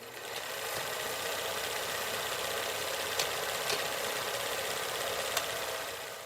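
A steady mechanical running noise with a fine rattle and a few faint ticks. It fades in at the start and fades out near the end.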